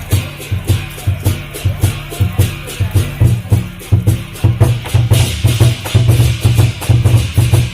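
Lion dance percussion music: a drum beating a fast, steady rhythm with cymbal crashes on the beat, growing a little louder about two-thirds of the way through.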